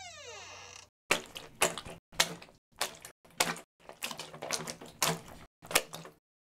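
A run of short knocks and clatters from foley sound effects, cut together as separate snippets with dead silence between them.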